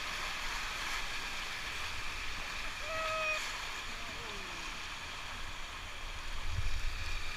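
River water rushing around a raft, a steady hiss of moving water, with a short distant voice call about three seconds in. Wind buffets the microphone near the end.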